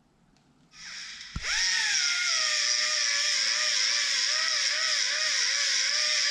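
Angle grinder starting about a second in and spinning up, then grinding down fresh welds on steel patch panels: a steady high hiss of abrasive on metal, with the motor's whine dipping and wavering as it is pressed into the work.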